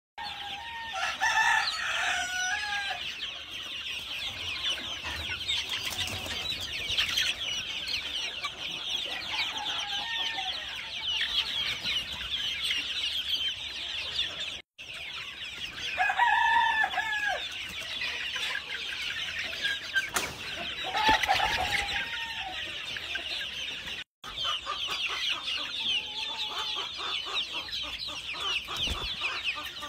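A large flock of young Fayoumi chickens chattering and clucking, a dense continuous mass of high peeping calls with a few louder drawn-out calls standing out now and then. The sound cuts out for an instant twice.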